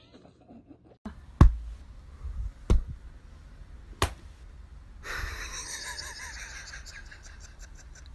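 Three sharp knocks, each with a low thud, about a second and a quarter apart, then a hiss of rustling noise that slowly fades.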